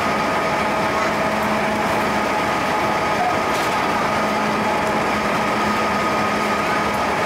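JR Central 211 series 5000 electric train running at a steady speed in a tunnel, heard from just behind the cab: a steady rumble of wheels on rail with a constant hum held at one pitch.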